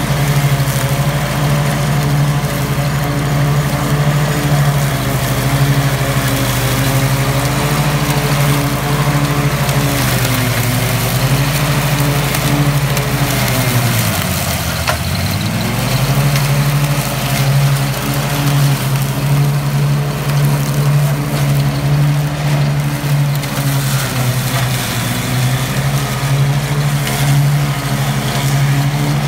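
Ride-on lawn mower engine running steadily under load as its deck blades mulch blackberry brush. About halfway through, the engine note sags sharply for a second or so and then picks up again as the engine bogs in the thick brush.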